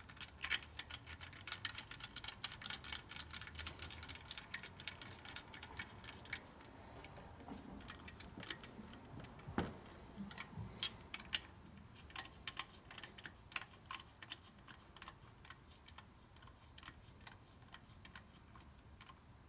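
Quick runs of small ratchet clicks from a hand driver turning the oil pump mounting bolts on a Harley ironhead Sportster crankcase. The clicks are dense for the first six seconds, then come in sparser separate clicks and light metal taps.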